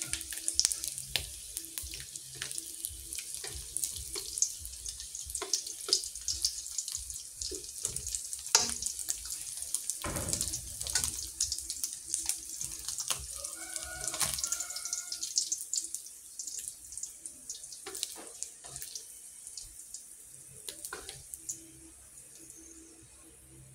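Hot oil sizzling and crackling in a wok as dried yellowstripe scad shallow-fries, with many small pops and the occasional click of chopsticks against the pan. The sizzle thins out near the end as the fish are lifted out.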